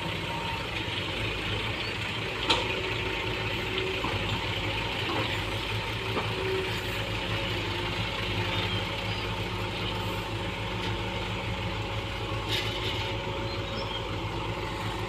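Hitachi EX120-3 excavator's diesel engine running steadily, with a sharp click about two and a half seconds in.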